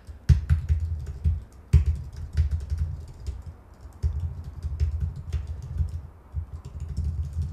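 Typing on a computer keyboard: irregular runs of keystrokes with short pauses between them, as a short line of code is entered.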